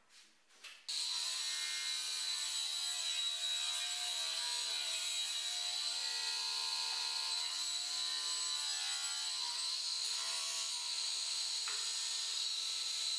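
Homemade table saw, built around a Scheppach chop saw's motor unit, running and ripping a softwood board along its fence. A steady high-pitched whine and cutting noise that starts abruptly about a second in and holds even.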